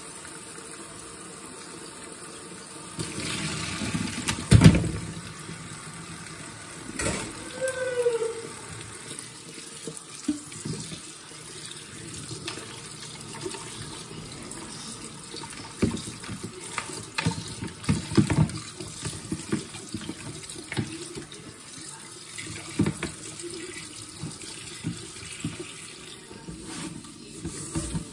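Cold water running from a kitchen tap into a stainless steel sink as chicken pieces are rinsed by hand in a plastic colander, with scattered knocks and clatter as the colander and then a steel pot are handled against the sink. The loudest knock comes about four and a half seconds in.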